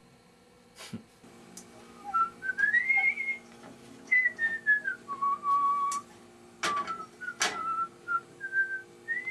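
A person whistling a slow tune, one wavering pitch moving up and down in short phrases. There are two sharp knocks about seven seconds in, and a faint steady hum underneath.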